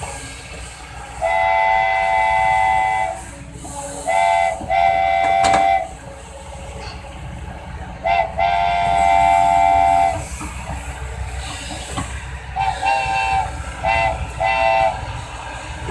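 A multi-tone horn sounding in a series of blasts, two of them long, about two seconds each, the rest short, with a quick run of short toots near the end, over a steady low rumble.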